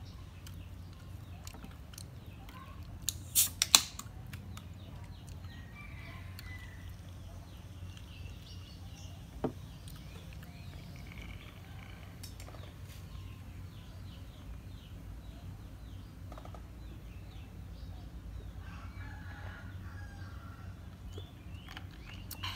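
Outdoor yard ambience: a steady low rumble with faint chicken clucking and bird calls scattered through it. A few sharp clicks come about three to four seconds in, and one more near ten seconds.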